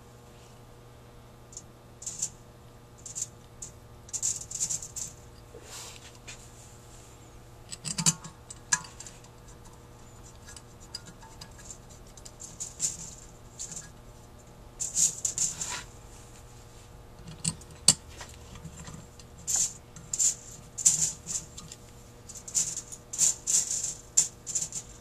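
Small screws with lock washers being handled and started by hand into a Rochester 4GC carburetor's cast metal body: irregular light metallic clicks, rattles and scratchy scraping in short clusters, over a faint steady hum.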